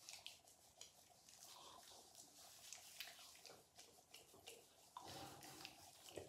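Faint wet squishing and crackling of hands rubbing foaming cleanser lather over the face, in quick irregular little clicks.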